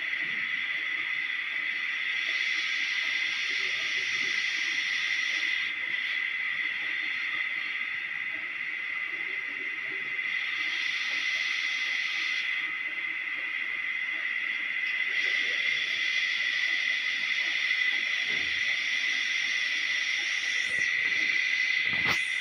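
A steady high-pitched hiss with a constant whine running through it, swelling louder for a few seconds twice. A single sharp click near the end.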